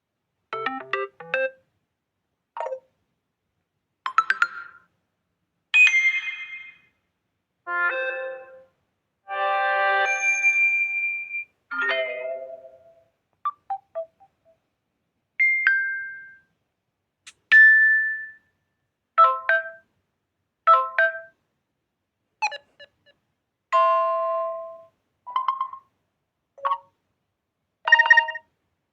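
Samsung Galaxy A06 notification tones played one after another: a run of about seventeen short electronic chimes and jingles, each lasting from a fraction of a second to about two seconds, with brief silences between them.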